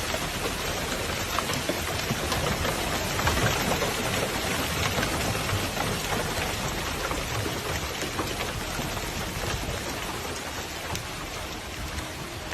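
Heavy, steady downpour falling on hard surfaces, with scattered sharper taps of individual drops or stones striking.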